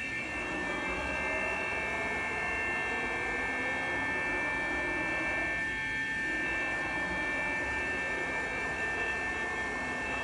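Steady machinery hum with several constant high-pitched whining tones from powered industrial equipment.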